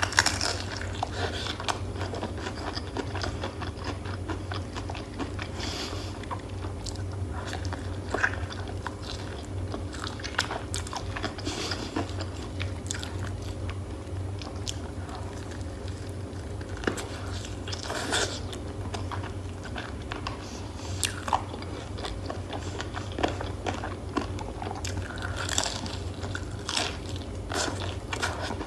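Close-miked biting and chewing of crispy breaded fried chicken: irregular crunches of the coating and chewing, with a steady low hum underneath.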